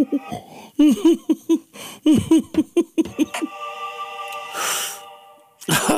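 A man laughing helplessly in quick, rhythmic 'ha-ha-ha' bursts for the first half. A steady held tone follows, then a sharp intake of breath just before the end.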